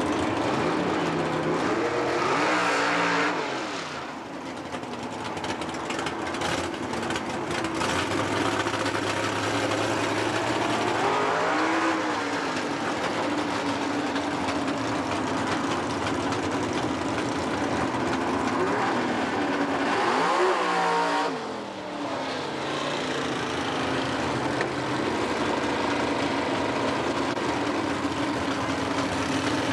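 Pontiac Firebird drag car's race engine idling, with the throttle blipped up and back down three times, at about 3, 12 and 21 seconds in.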